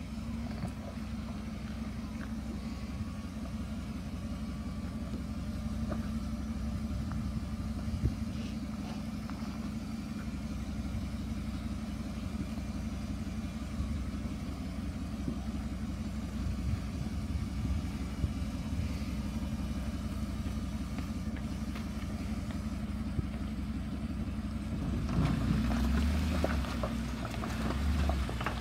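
Off-road vehicle's engine running steadily at low revs as the vehicle is driven slowly along the trail, getting louder near the end.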